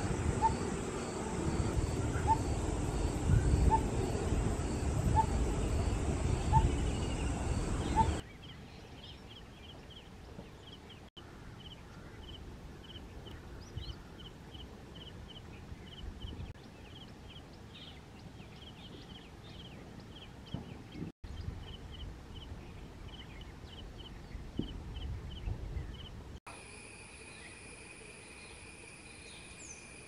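Outdoor natural ambience from several spliced field recordings. First comes a low wind rumble with a regular faint call. Then a quieter stretch of short chirps repeated about twice a second. A steady high trill starts about four seconds before the end.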